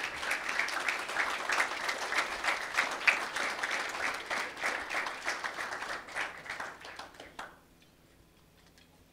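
Audience applauding, dying away about seven and a half seconds in.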